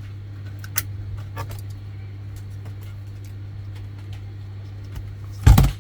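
Light clicks and taps of laptop parts being handled, likely a RAM module going into the motherboard, over a steady low hum. A loud knock comes near the end.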